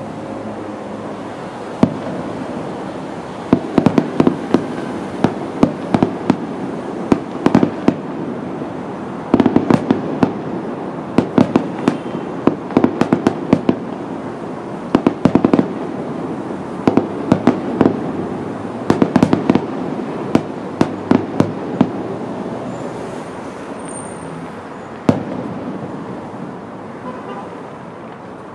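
Aerial firework shells bursting in rapid volleys: strings of sharp bangs over a continuous rumble of reports. They thin out near the end to a single bang.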